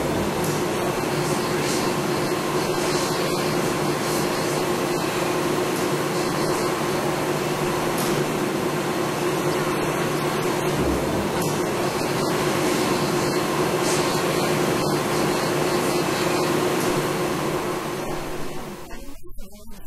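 Steady machinery drone with a constant hum running under the talk in a dried-radish processing plant. It fades near the end.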